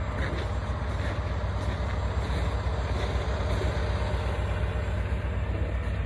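Semi-truck diesel engine idling steadily, a low even rumble.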